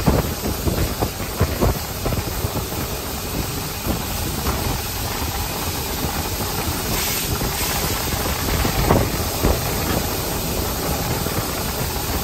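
Cab noise of Nickel Plate Road 765, a 2-8-4 Berkshire steam locomotive, under way: a steady hiss and rumble with irregular clanks and knocks. A brief louder hiss comes about seven seconds in.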